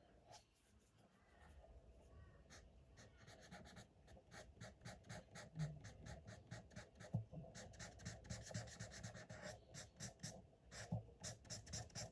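Felt-tip marker scratching on paper in quick, short back-and-forth colouring strokes. It is faint, and the strokes grow busier and louder after about four seconds.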